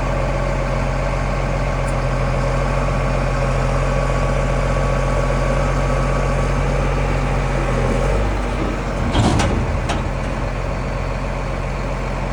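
Large engine idling steadily. Its low note shifts about eight seconds in, and a couple of short clunks come around nine seconds.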